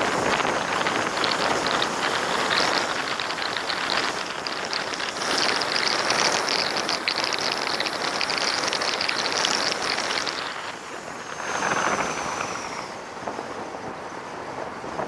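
Wind rushing and buffeting over the microphone of a camera on a moving vehicle, a steady noisy rush with fine crackle that eases a little about ten seconds in.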